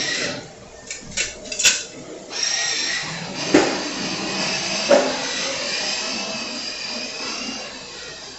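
Chicken pieces frying in hot oil, sizzling steadily, with a few sharp clicks and knocks in the first two seconds and two more a little later.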